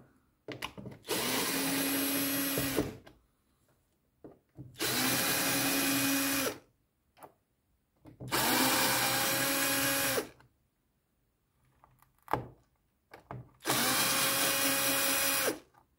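Cordless drill-driver running in four short bursts of about two seconds each, turning the screws of a plastic air filter housing lid, with a steady motor whine in each run.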